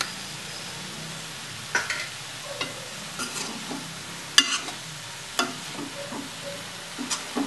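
Slotted steel spatula stirring gram-flour-coated taro pieces in a non-stick kadhai: soft scrapes and a few sharp taps against the pan, the loudest about four and a half and five and a half seconds in, over a faint steady sizzle from the low flame.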